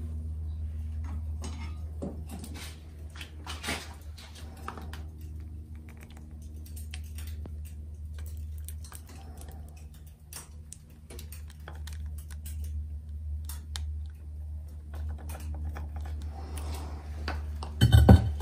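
Steel tongs clinking and knocking against a fire-assay crucible as it is drawn from the electric furnace and its molten lead-and-flux melt is poured into a mould, over a steady low hum. A cluster of louder knocks comes near the end.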